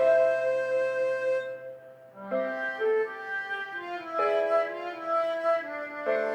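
Harmonica playing a pop melody over a backing track. A long held note fades out about two seconds in, there is a short pause, and then the tune picks up again with a new phrase.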